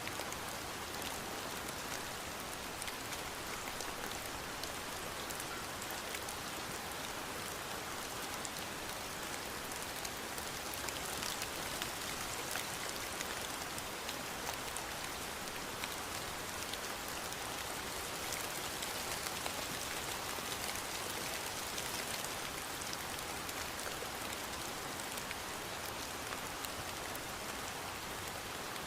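Steady rain falling and pattering on a surface, an even hiss with fine drop ticks throughout.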